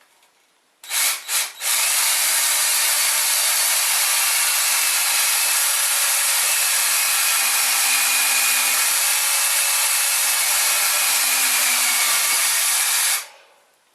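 Battery-powered cordless drill: three short trigger blips, then a steady run of about eleven seconds that stops shortly before the end.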